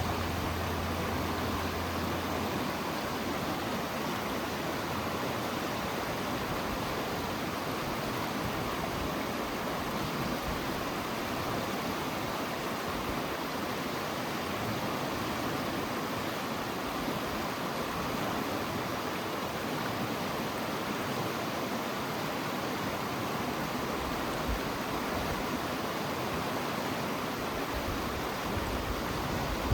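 Creek water rushing steadily, an even hiss of flowing water without a break.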